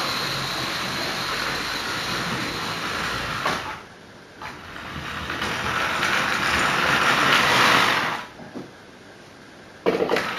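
Model class 47 locomotive and its coaches running along the layout's track, a steady rumble of motor and wheels. About four seconds in it fades briefly, then builds to its loudest just before eight seconds as the train draws near, and drops away suddenly.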